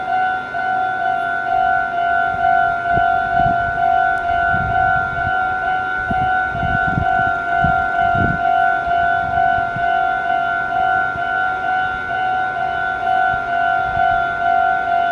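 Japanese railway level-crossing alarm ringing its repeated electronic "kan-kan" warning tone at an even rhythm. It sounds while the barriers are down for an approaching train. Some low rumbling comes underneath around the middle.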